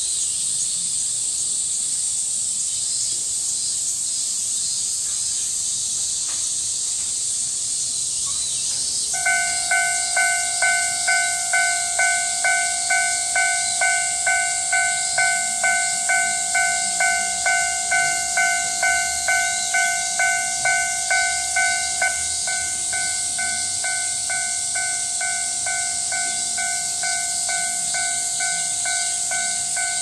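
Steady high-pitched hiss of summer cicadas. About nine seconds in, a Japanese railway level crossing's electronic warning bell starts ringing about twice a second, signalling an approaching train; a little after twenty seconds its strokes become softer and less distinct while it keeps ringing.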